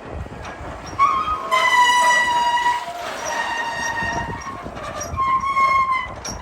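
High squeal of metal rubbing on metal, in three stretches: the loudest and longest comes about a second and a half in, and two shorter ones follow.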